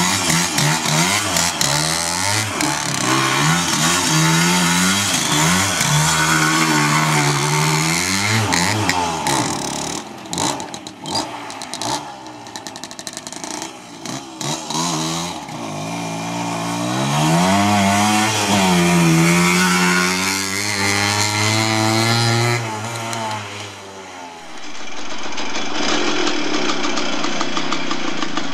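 Suzuki RV90's small two-stroke single-cylinder engine revving, its pitch rising and falling over and over as the minibike is ridden, with a rougher, choppier stretch in the middle. Near the end it changes to a steady, even idle.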